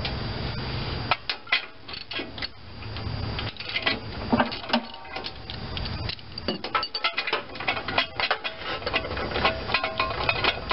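Ratchet and socket clicking and metal clinking as the spark plug is unscrewed from a Briggs & Stratton 11 hp engine, with a low steady hum under the first few seconds.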